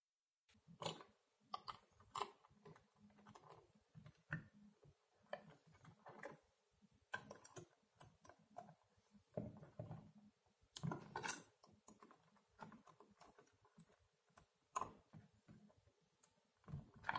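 Faint, irregular clicks and taps of small plastic and metal parts being handled on a motherboard as the CPU socket's mounting bracket is taken off.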